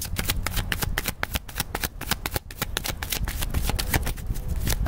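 A deck of tarot cards being shuffled by hand: a fast, continuous run of crisp card-on-card clicks.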